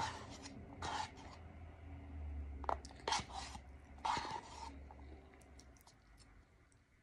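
A metal spoon scraping around the inside of a paper ramen cup to get the last bite: four short scrapes with a couple of sharp clicks against the cup.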